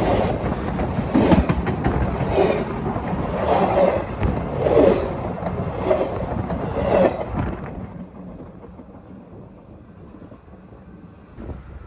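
Loaded freight train cars rolling past, wheels clacking in a regular rhythm about once every second. The sound falls away about seven and a half seconds in as the train passes.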